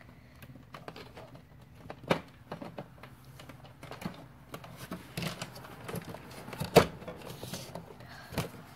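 Light plastic clicks and knocks as the pieces of a toy camper playset are handled, with a sharper knock about two seconds in and the loudest one about two-thirds of the way through.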